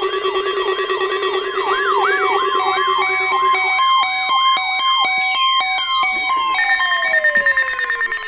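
A layered mix of electronic siren and alarm tones. A low warbling tone stops a few seconds in; a yelp sweeps up about three times a second; stepped beeping joins about three seconds in; and from about five seconds a wail glides steadily down in pitch.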